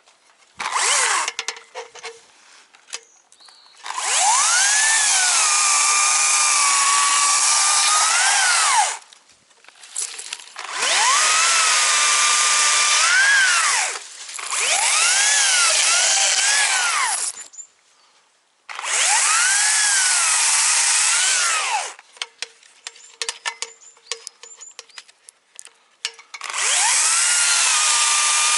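Two-stroke chainsaw making repeated cuts of a few seconds each into the top of a storm-felled tree. In each cut the engine revs up, drops in pitch as the chain bites into the wood, and revs out again before stopping. Light clicking and rattling fill the short pauses between cuts.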